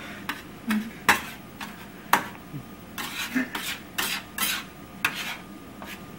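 Slotted spatula scraping and tapping against a stainless steel skillet while a thick, pudding-like egg mixture is stirred, in irregular clicks and short scrapes, a few each second.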